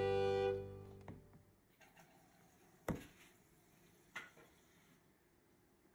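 Background music ending on a held chord that fades out within the first second, then a few faint knocks from a plastic tub being handled on a wooden table, the sharpest about three seconds in.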